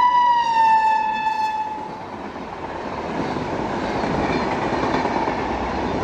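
Horn of a passing WAP-7 electric locomotive: one long note that drops in pitch as the engine goes by and stops about two seconds in. Then the noise of sleeper coaches rolling past at speed, with wheel clatter on the rails, growing louder.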